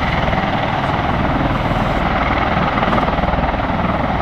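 Boeing 787 Dreamliner's twin turbofan engines heard from the ground as the airliner flies past: a loud, steady jet engine noise with a low rumble beneath.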